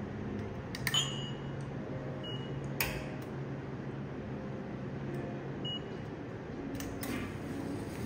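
A ceramic coffee cup is set onto a small digital scale on an espresso machine's stainless drip tray, making a few light clicks and knocks. Two short electronic beeps come from the scale, over a low steady hum.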